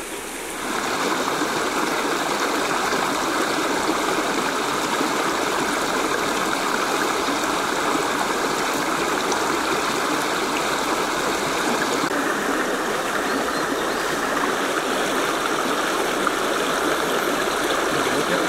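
Shallow creek running: a steady rush of flowing water that comes up under a second in and holds evenly.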